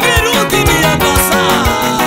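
Gospel song performed live: a man singing over a Yamaha electronic keyboard accompaniment with a quick, steady drum beat.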